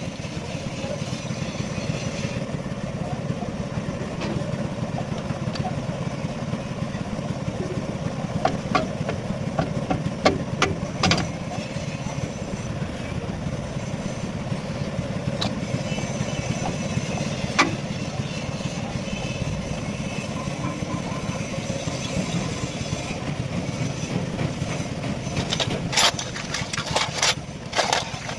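An engine running steadily in a low drone, with sharp knocks now and then and a quick cluster of them near the end.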